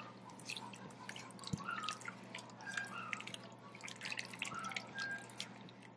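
Silicone whisk stirring whole milk into a butter-and-flour roux in a nonstick skillet: faint wet sloshing with many small dripping clicks, as a white sauce starts to thicken.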